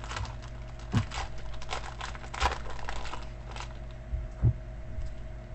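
A trading-card pack being torn open by hand, its wrapper crinkling and crackling in irregular snaps, with a steady low hum underneath.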